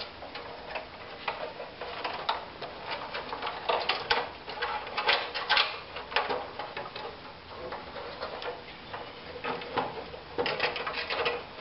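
Handling noise of a plastic consumer-unit enclosure being fed over a bundle of electrical cables: irregular light clicks, taps and scrapes of plastic and wire insulation.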